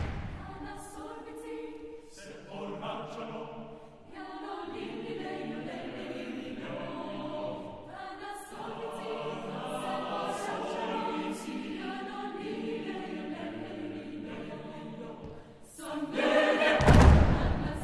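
Mixed chamber choir singing a cappella in several parts, soft and sustained, with a sudden loud, noisy outburst near the end.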